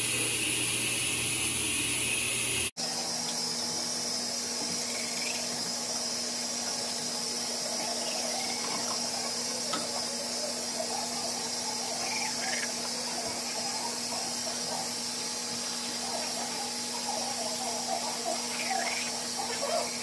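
Manual toothbrush scrubbing teeth: soft, irregular scratching that comes and goes and gets busier near the end, over a steady hiss. The sound cuts out abruptly for an instant about three seconds in.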